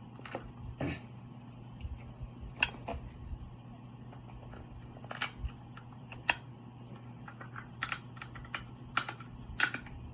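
Close-miked eating of a garlic-butter seafood boil: irregular wet clicks, crackles and smacks from handling and chewing the seafood, over a steady low hum.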